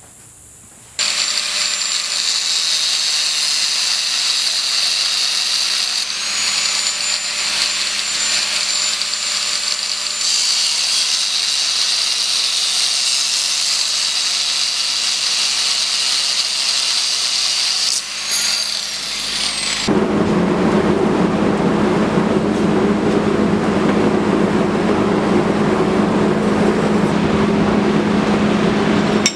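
A power tool cutting a piece off a steel coil spring: steady cutting noise with a high whine, changing abruptly a few times. About two-thirds of the way through, a louder, deeper steady mechanical hum takes over.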